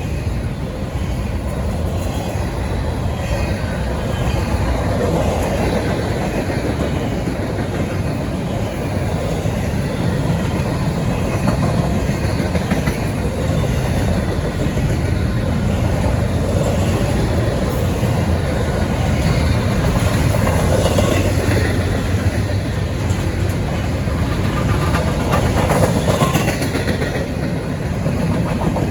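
Long intermodal freight train of double-stack well cars rolling past, a steady rumble of wheels on rail.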